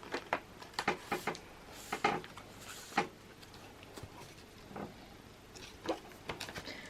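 Light taps, clicks and soft rustles of Pokémon cards and cardboard box packaging being handled on a table, most frequent in the first three seconds.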